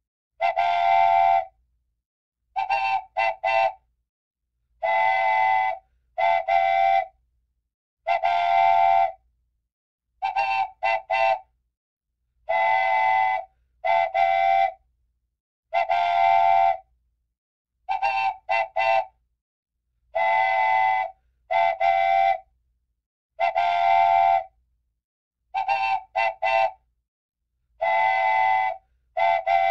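A multi-tone whistle blowing over and over: longer blasts alternate with quick runs of three short toots, in a pattern that repeats about every eight seconds.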